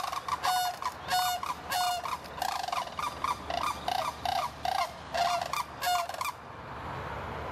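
Sandhill crane chicks peeping: a rapid series of short, high calls, about two or three a second, which stop about six seconds in and leave a steady hiss.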